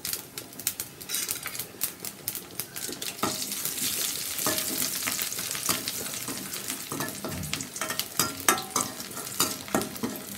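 A tempering of curry leaves, mustard seeds, urad dal and onion vadagam sizzling in hot oil in a steel kadai. A metal slotted spoon stirs it, scraping and tapping against the pan many times. The sizzle is loudest midway.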